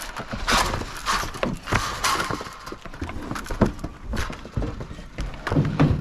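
Cattle hooves knocking and clattering on the wooden floorboards of a loading chute as the animals walk up into a cattle truck, an irregular run of knocks and thuds.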